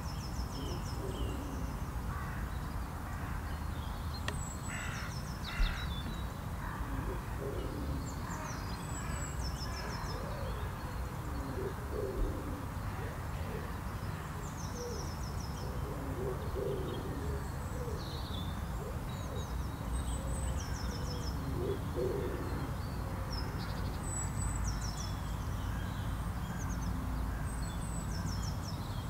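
Birds calling: a short, high, falling song phrase repeats every few seconds, with lower calls in the middle stretch. A steady low rumble sits underneath.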